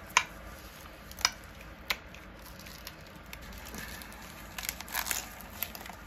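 Hands fitting a neoprene cooling wrap with frozen ice packs around a glass beaker bong: three light clicks and taps in the first two seconds, then rustling and crinkling of the fabric and plastic packs as the seam is pressed shut, near the end.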